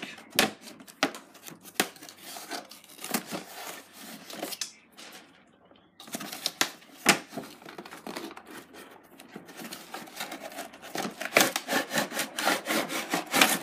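A cardboard toy box with a plastic window being handled and opened by hand: irregular scraping, rubbing and crinkling. There is a short lull about five seconds in and busier handling near the end as the box flap is opened.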